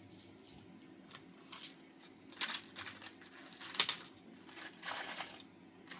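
Small plastic craft packets being handled, crinkling in short rustles, with one sharp click a little before the four-second mark.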